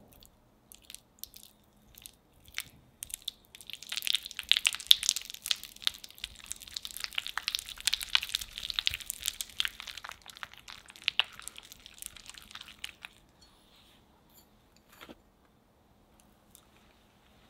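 A whisk beating cubed unsalted butter in a glass bowl as it is creamed. The whisk makes a fast run of squishing clicks and scrapes against the glass that builds about three seconds in and lasts about ten seconds, then thins to a few faint taps.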